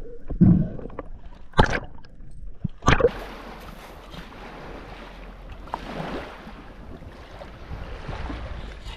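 Water splashing and sloshing around the camera in shallow water. There are a few sharp splashes in the first three seconds, then a steady wash of moving water.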